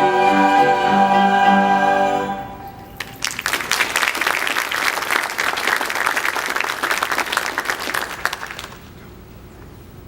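A choir holds the final chord of a hymn, which stops about two and a half seconds in. After a brief pause a congregation applauds for about five seconds, and the applause then dies away.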